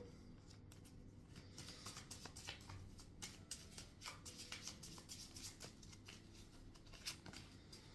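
A deck of tarot cards being shuffled by hand: a faint, irregular run of quick card flicks and taps as the cards slide against each other.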